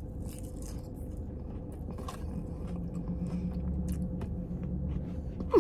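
Chewing a mouthful of leafy chicken-and-avocado salad, with faint crunching of lettuce, over a steady low hum.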